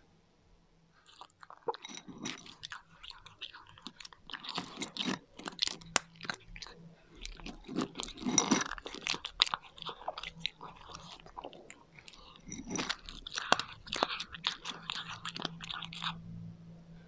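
A cat crunching dry kibble, a dense run of sharp crunches and chewing that starts about a second in, with short pauses between mouthfuls.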